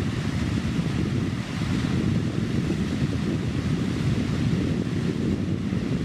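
Steady rushing of a waterfall, thin streams of water falling down a rock face; a deep, even rush with no breaks.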